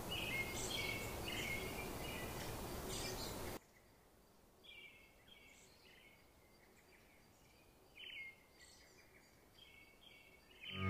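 Birds chirping faintly in short repeated calls with quick upward slides, over a steady outdoor hiss that cuts out suddenly about three and a half seconds in while the chirping goes on; music starts right at the end.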